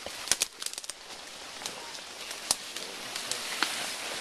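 Young mountain gorilla tearing into split banana stems: sharp cracks and snaps of the fibrous stems, a quick run of them in the first second, then single snaps about halfway and later, over a steady hiss.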